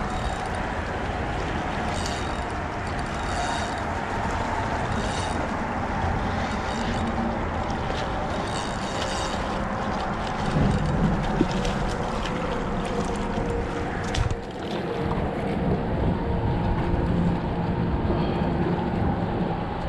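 Steady wind rushing on the microphone over small waves washing against shore rocks, with a few short bursts of a spinning reel being wound as a hooked fish is reeled in.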